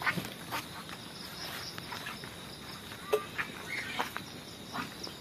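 Insects chirping in the field: a high-pitched pulsing trill of about five pulses a second, with scattered soft clicks and rustles.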